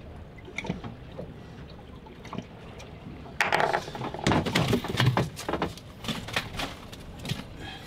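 Water slapping at a boat's side. From about three and a half seconds in there is a run of loud, irregular splashes and knocks as a hooked tautog thrashes at the surface and is brought up over the gunwale.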